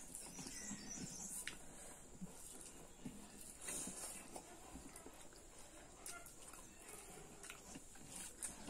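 Eating sounds from two people eating rice and pork curry with their hands: chewing and mouth smacks, with fingers squishing and mixing rice on the plates, heard as scattered soft clicks.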